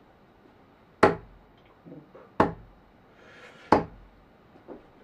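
Three darts striking a dartboard one after another, one sharp thud each, evenly spaced a little over a second apart: one full turn of three darts.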